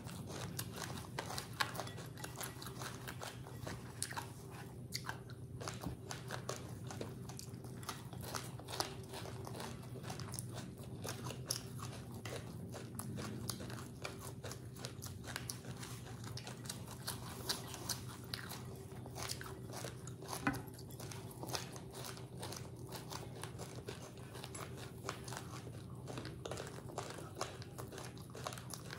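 Close-up chewing of puffed rice mixed with coconut and sugar: a dense, irregular run of small crunches, with a steady low hum underneath.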